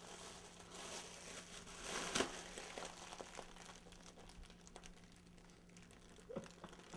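Foil (Mylar) helium balloon crinkling and rustling as it is squeezed and handled while helium is breathed in from its neck, with scattered sharp crackles, the loudest about two seconds in.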